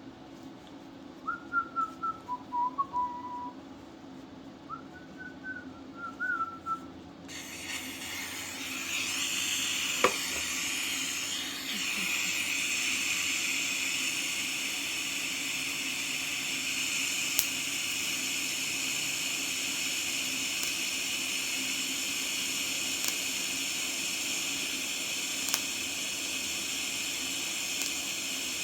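A person whistles a few short notes. About seven seconds in, a steady hiss starts suddenly and runs on: a TIG welding arc burning, with a sharp click soon after it starts.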